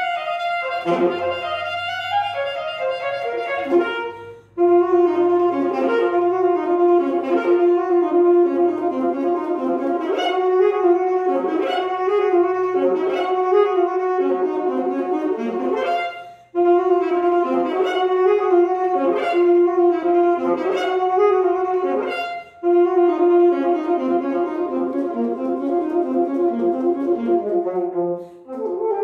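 Alto saxophone played unaccompanied in long, held melodic phrases. The sound breaks off briefly four times for breath, leaving the hall almost quiet.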